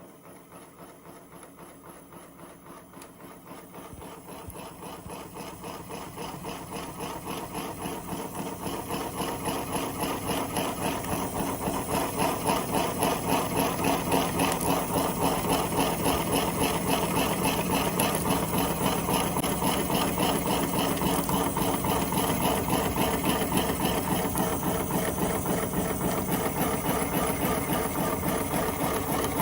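A machine running steadily with a fast, even rhythmic beat. It swells gradually over the first ten seconds or so, then holds at a steady level.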